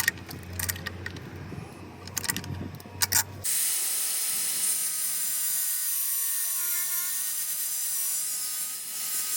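Clicks and light knocks of tool handling, then from about three and a half seconds in a small power tool running with a steady high whine and hiss.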